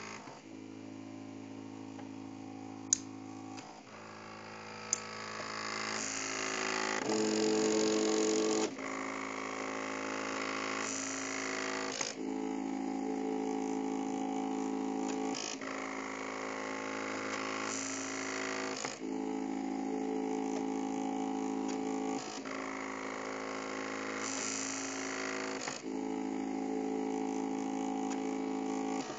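MakerBot Cupcake CNC 3D printer laying down a raft: its stepper motors whine in steady tones that change every few seconds as the print head moves from one raft line to the next. There are two sharp clicks about three and five seconds in, and it is loudest around seven to nine seconds in.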